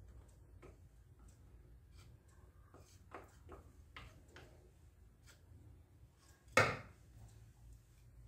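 Faint scattered taps and clicks of a wooden spoon and plastic measuring cup against a ceramic mixing bowl as honey is worked into ground sellou, with one louder knock about six and a half seconds in.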